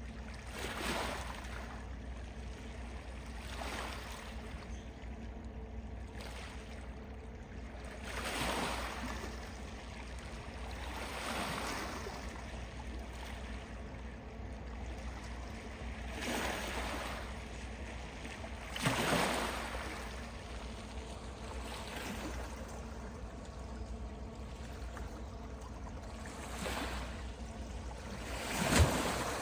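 Small waves lapping at the water's edge, one wash of water every few seconds, over a steady low rumble.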